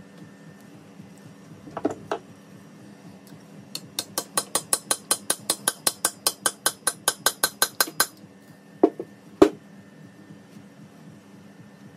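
A hammer tapping on metal. Two knocks come first, then a quick even run of about twenty light, ringing strikes at roughly five a second. Two heavier blows end it.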